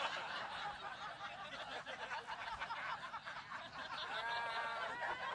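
Comedy-club audience laughing at a punchline, a crowd of chuckles with a few individual laughs standing out near the end.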